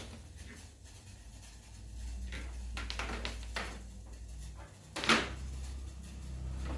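A few light knocks and clicks, then one sharper, louder knock about five seconds in, over a low steady rumble.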